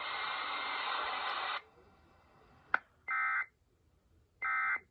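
Weather-radio hiss that cuts off about a second and a half in, a click, then two short buzzing bursts of Emergency Alert System (SAME) digital data, about a second and a half apart: the end-of-message code that closes the alert.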